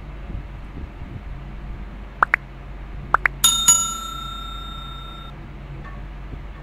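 Sound effects of a subscribe-button overlay: two pairs of short chirps, then a small bell struck twice, its ring dying away over about two seconds.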